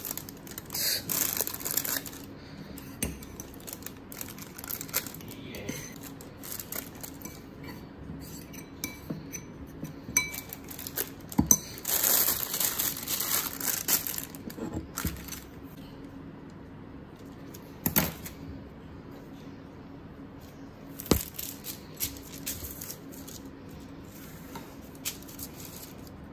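Metal spoon scraping and clinking against a ceramic bowl while batter is scooped into a plastic ziplock bag. The bag crinkles in bursts, the longest near the middle, and a few sharp clinks of the spoon on the bowl stand out.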